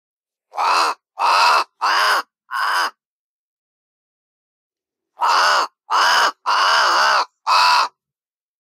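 Crow cawing: two series of four harsh caws, the second series starting about two seconds after the first ends, with dead silence between them.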